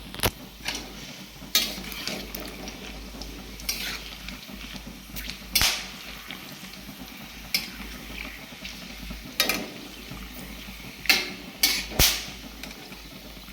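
A metal spoon stirring whole spices in a kadai of hot mustard oil, with a light frying sizzle underneath and sharp clinks and knocks of the spoon against the pan at irregular moments, the loudest a few near the end.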